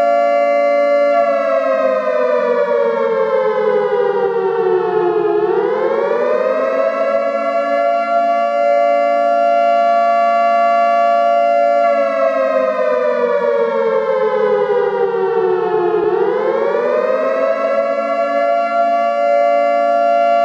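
Air raid siren wailing: a loud held two-note chord that sinks slowly over about four seconds, then swings back up and holds. It does this twice.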